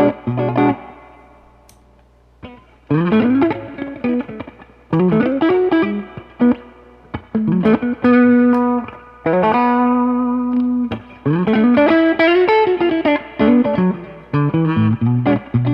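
Reverend Pete Anderson PA-1 electric guitar played through a Mesa/Boogie 5:25 Express 1x10 combo amp: a lead line of picked notes with several upward string bends and long held notes. Near the start one note is left to ring and die away for about two seconds before the phrases resume.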